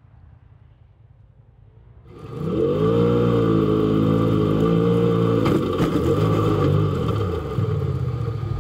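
A race car's engine running at high revs, heard from inside the cabin, cutting in about two seconds in. A few sharp knocks come about halfway through, and the engine note dips and picks up again while the car rolls over in the snow.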